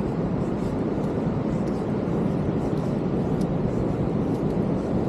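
Steady roar of ocean surf, mixed with wind.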